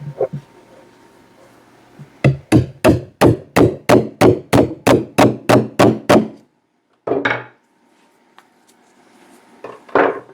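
A hammer striking on a small steel bench anvil, about a dozen quick, evenly spaced blows at roughly three a second, as a test copper rivet is driven for leatherwork. Two shorter, duller handling noises follow.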